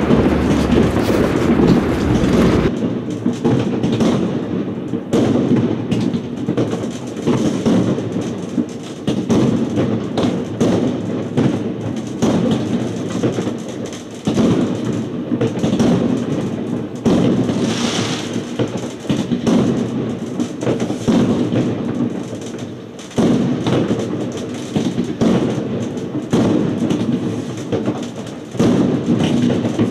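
Many fireworks going off at once: a dense, continuous run of overlapping bangs and crackles.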